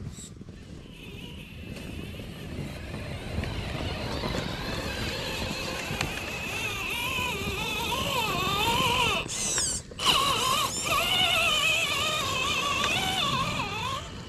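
Scale RC rock crawlers' electric motors and geartrains whining, the pitch wavering up and down as the throttle is worked while the trucks climb over a snowy log. The whine cuts out briefly a little before ten seconds in, then carries on.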